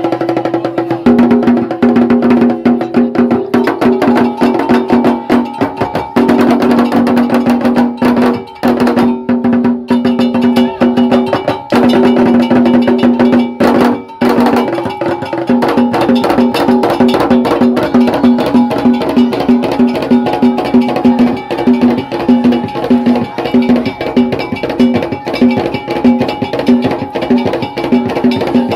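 Traditional percussion music: dense, rapid wood-block-like strikes and drums over a quickly repeated low pitched note.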